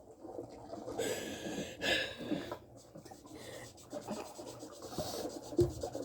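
Soft rustling and scratching, with a brief hissy rustle between about one and two seconds in.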